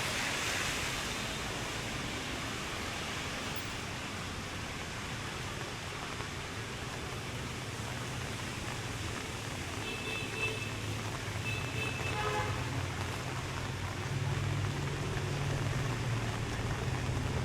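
Steady hiss of rain on a street. A motor vehicle's engine hum builds in the second half, and a few short high-pitched tones sound around the middle.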